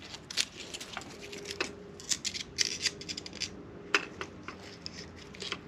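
Light metallic clicks and clinks of a steel feeler gauge set being handled, its blades fanned and slipped between a connecting rod and the crankshaft to measure rod side clearance.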